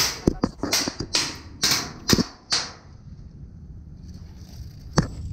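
Airsoft rifle firing a string of single shots, about two a second, each a short sharp snap with a hiss, which stops after a couple of seconds; two more sharp clicks come near the end.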